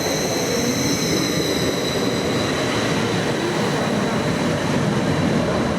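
A passenger train moving through the station with a steady rumble and high-pitched whining tones that fade after the first couple of seconds.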